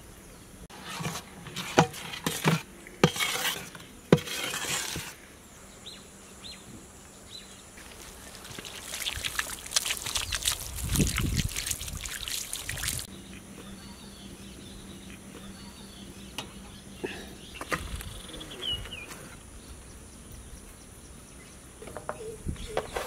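Water poured from a plastic mug over a person's hands, splashing onto the ground for about five seconds and stopping suddenly. A few sharp knocks come before it.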